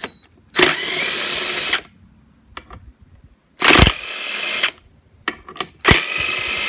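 Power drill/driver running in three bursts of about a second each, with quiet gaps and small clicks between, as fasteners are backed out to take the top off the air compressor's pump.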